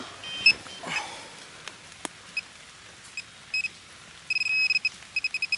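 Handheld metal-detecting pinpointer beeping as it is swept through loose soil. A few short beeps early on give way, about four seconds in, to a held tone and rapid beeping as the probe closes in on a buried coin. A few sharp knocks come from the probe tip striking the soil.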